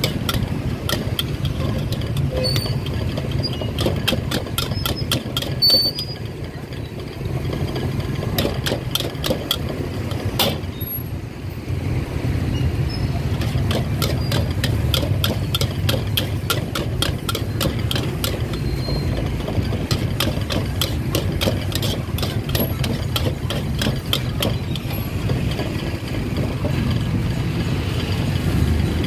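Metal ladle and spatula scraping and clanking rapidly against a steel wok while fried rice is stir-fried, over the steady low rumble of a high-flame gas wok burner.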